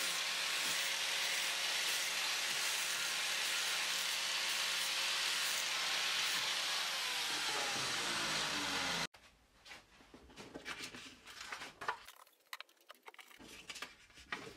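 Angle grinder with a flap disc smoothing the edges of a metal carburettor intake flange, running steadily, then switched off and winding down with a falling whine about two-thirds of the way through. After an abrupt cut, quieter light clicks and rustles of hands handling a metal pipe and a paper template.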